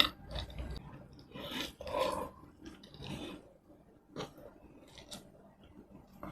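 Close-miked eating of tomato rice and chicken in red sauce: wet chewing and mouth clicks in irregular short bursts, busiest about two seconds in, then sparser.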